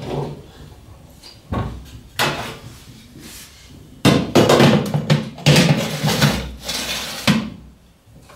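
An oven door being opened with a couple of knocks, then a metal baking tray clattering and scraping for about three seconds as it is slid in on the oven's rack.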